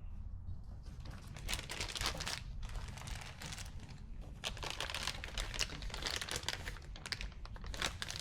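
Packaging crinkling and rustling in irregular bursts as ratchets are unwrapped and handled, starting about a second in.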